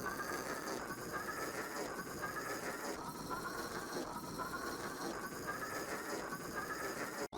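Cartoon character snoring, pitch-shifted by an editing effect: a rising whistly tone comes back about every one and a half to two seconds over a steady hiss, and cuts off suddenly at the end.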